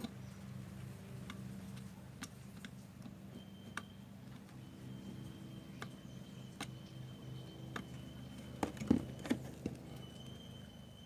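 Small tools clicking and tapping against the phone's board and new charging port while it is being fitted and seated, with a cluster of louder knocks near the end. A steady low hum and a faint high steady tone run underneath.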